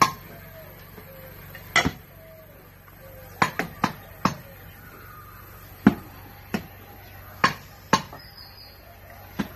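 Picks striking into hard clay soil as a trench is dug: sharp, irregular impacts, about a dozen, with a quick cluster of three near the middle.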